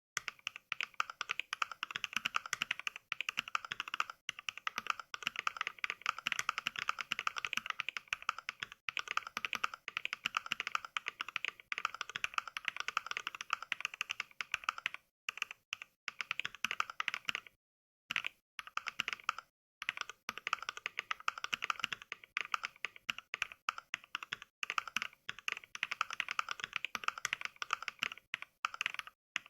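Steady fast typing heard as Mechvibes' simulated NK Cream mechanical-keyboard switch sounds, each key press playing a recorded clacky keystroke. The stream breaks off in a few short dead-silent pauses midway and once near the end.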